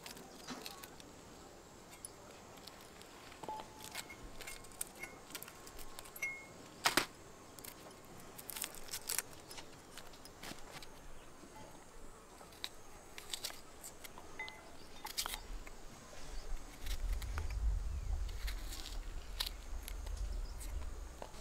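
Irregular small crisp clicks and snicks of a knife trimming and slicing a fresh vegetable by hand, with pieces dropping into a glass bowl. A low rumble joins in for the last few seconds.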